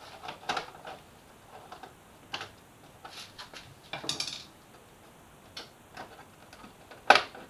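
Scattered light clicks and taps of plastic motorcycle fairing parts, the front vents, being worked and pried loose, with a longer scraping click about four seconds in and a sharper knock near the end.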